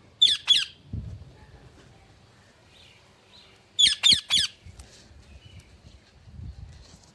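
A parakeet giving sharp, loud screeching calls: two in quick succession at the start, then three more in a quick run about four seconds in.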